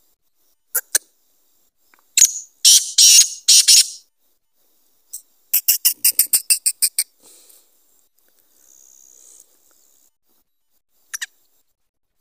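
Black francolin calling: a group of loud notes about two seconds in, then a quick run of about ten short, evenly spaced notes, and a short double note near the end.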